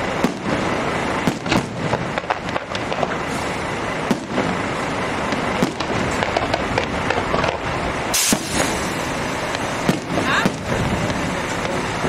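Fireworks display: shells bursting in a dozen or so bangs at uneven intervals over a continuous noisy rumble, with one sharp crack about two-thirds of the way through.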